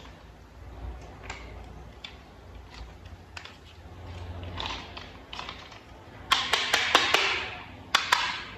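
Small plastic toy parts being handled and fitted together: scattered light taps and clicks, then a louder run of sharp clicks over a hiss about six seconds in and two more sharp clicks near the end.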